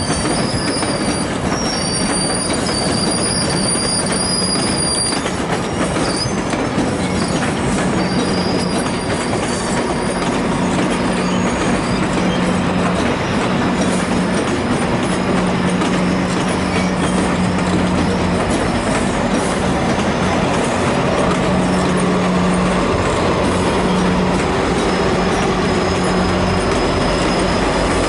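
GO Transit bilevel passenger coaches rolling past at low speed over the station tracks, with a steady rumble of wheels and thin, high wheel squeal in the first few seconds and again briefly after about eight seconds. Near the end the deeper rumble of the MP40PH-3C diesel-electric locomotive pushing the train grows as it draws near.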